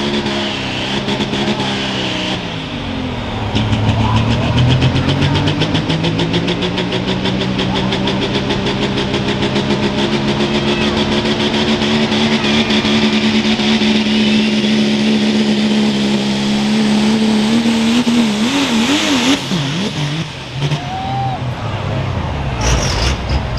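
Super stock diesel pickup engine under full load pulling a weight sled. Its pitch dips briefly, then climbs steadily for about fifteen seconds. Near the end the pitch wobbles up and down, and the engine drops off as the throttle comes off.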